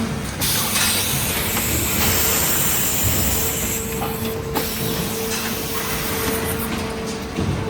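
Industrial machine running with a steady hum and scattered clicks, and a hiss like escaping compressed air for about four seconds near the start.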